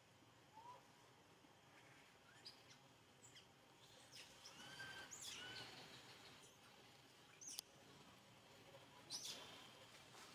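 Faint animal calls: scattered short chirps, each rising then falling in pitch, with a few soft clicks, over near silence.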